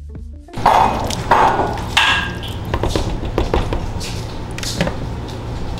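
Kitchen cooking sounds: utensils knocking and clicking against cookware, with a few short scraping rustles in the first couple of seconds.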